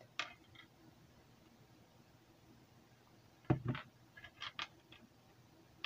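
Faint paper rustles and small clicks from hands turning and pressing the glued end of a rolled newspaper tube on a knitting needle, with a short knock about three and a half seconds in, over quiet room tone.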